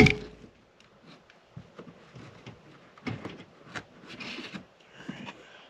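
Plastic trim panel and its retaining clips being worked loose by hand: a sharp snap right at the start, then scattered clicks, knocks and rustling.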